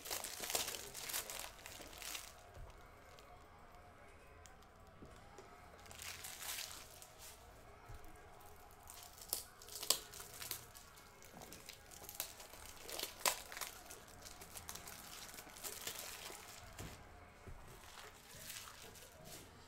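Plastic packaging crinkling and rustling in short bouts, with a few sharp clicks, as packs of trading-card top loaders are handled.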